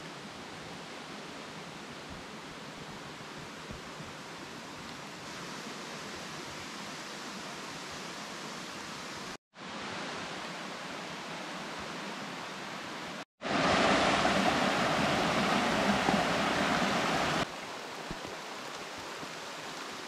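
Steady hiss-like outdoor noise with no clear source, cut off abruptly twice, about nine and a half and thirteen seconds in. It is noticeably louder for about four seconds after the second cut.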